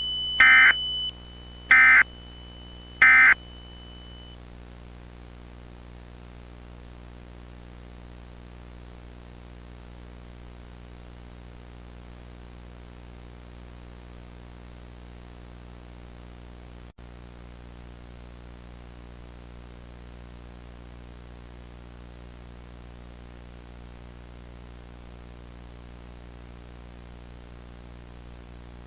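Emergency Alert System end-of-message data bursts: three short, harsh digital screeches about 1.3 s apart, following a steady high tone that stops about a second in. After them comes a steady low hum and hiss of dead air.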